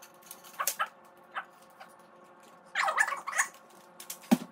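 Metal light stand's folding legs and sliding collar squeaking in short, falling squeals as the legs are spread open, with a sharp knock near the end as a leg or joint clacks into place.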